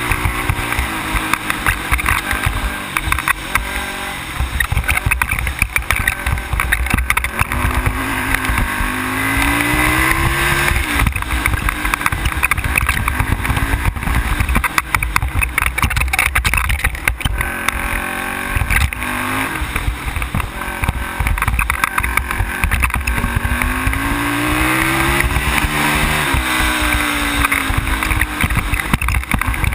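ATV engine running at speed, its pitch rising and falling several times as the throttle is opened and eased. Heavy low wind rumble on the microphone runs underneath.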